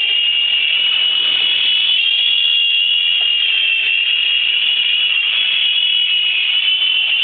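Mini Cobra RC helicopter's small electric motors and rotors running with a steady high-pitched whine that starts abruptly.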